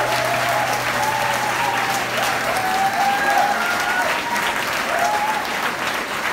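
Audience applauding and cheering at the end of a song, with a steady clapping haze and scattered shouts. A low hum stops about two and a half seconds in.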